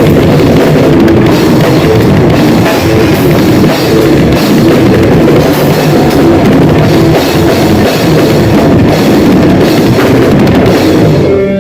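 Grindcore band playing loud and dense, with fast drums, cymbals and distorted guitar.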